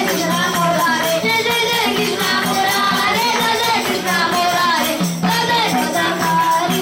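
Group of young students singing a devotional Krishna bhajan over a held drone, with jingling percussion keeping the beat.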